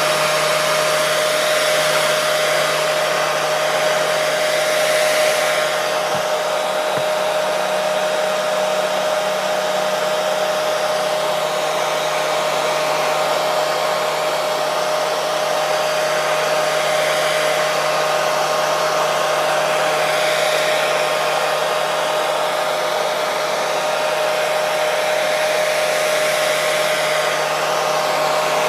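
Hair dryer running steadily: a constant rush of blown air with a steady whine from the motor, played continuously as white noise to lull babies to sleep.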